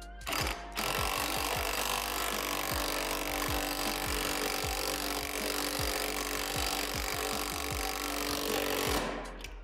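Cordless drill driving a bolt through a steel bracket while the nut is held with a wrench. It gives a short burst, then runs steadily for about eight seconds and stops near the end.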